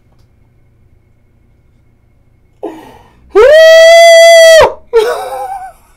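A man's long, very loud, high-pitched scream of shock, held on one steady pitch for over a second, followed by a shorter wavering cry.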